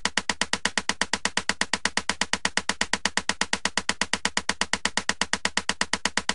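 Simulated abnormal noise of a four-stroke engine at 1000 rpm: a sharp, evenly spaced click repeating about eight times a second, steady throughout.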